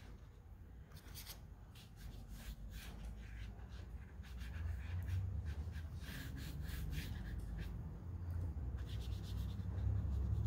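Pentel Aquash water brush stroking and dabbing pigment onto watercolor paper: a run of short, soft scratchy brush strokes. A low rumble rises underneath from about halfway through.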